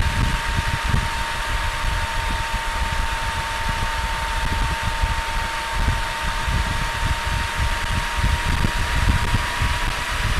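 Can-Am Spyder three-wheeled motorcycle cruising at road speed: steady wind buffeting on the microphone over engine and road noise, with a thin steady whine that runs throughout.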